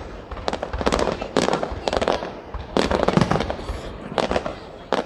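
Aerial fireworks bursting: a series of sharp bangs, each trailing a short echoing rumble, with several close together about three seconds in.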